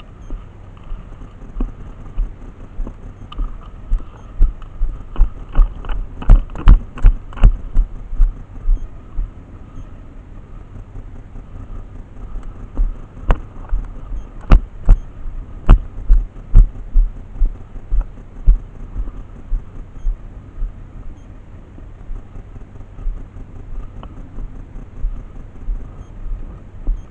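Footsteps heard as a run of low thumps, about two to three a second, with two clusters of sharp clicks about six and fourteen seconds in.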